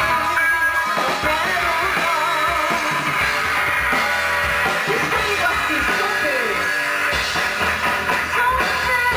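A live band playing a Christian worship song, with guitar and drum kit.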